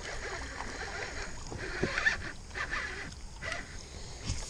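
Baitcasting reel being cranked while a hooked pike fights at the surface: reel and handling noise mixed with water splashing and sloshing, in uneven bursts with a couple of sharp knocks.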